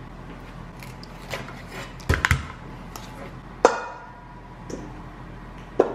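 Kitchen knife and chicken wings knocking on a granite countertop as the wings are cut apart and handled. There are a few sharp knocks: a pair about two seconds in, the loudest, then one a little before four seconds with a brief metallic ring, and another near the end.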